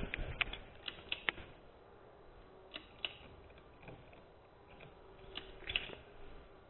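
Faint, scattered clicks and taps in a quiet room: several in the first second or so, a couple around the middle, and a small cluster near the end.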